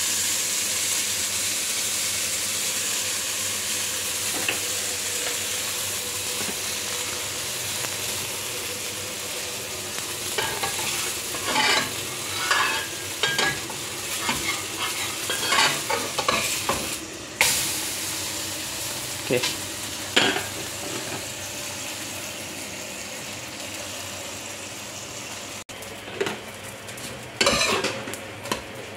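Raw roti sizzling in a dry nonstick wok with no oil: a steady hiss that slowly fades. From about ten seconds in, and again near the end, a metal spatula scrapes and taps against the pan as the roti is turned and pressed, with one sharp click in the middle.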